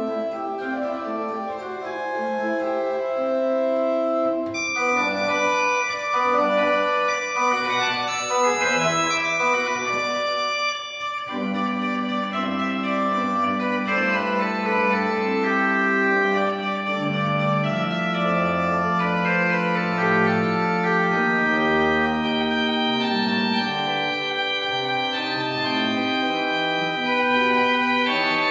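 Pipe organ playing an improvisation: many sustained notes in several parts at once. There is a short break about eleven seconds in, after which a low note is held for several seconds beneath moving upper lines, with deeper pedal notes coming in later.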